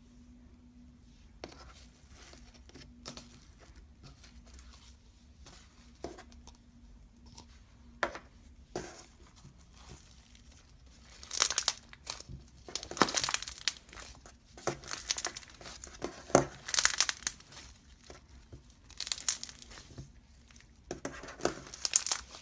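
Slime being squeezed and worked by hand, making crackling, crinkling sounds. The first half is quiet with a few soft clicks; from about halfway through come repeated clusters of loud crackles.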